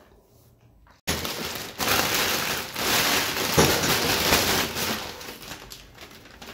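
Thin plastic shopping bag rustling as it is handled and pulled off a bowl of mangoes. It starts suddenly about a second in and fades near the end, with a soft knock a little past the middle.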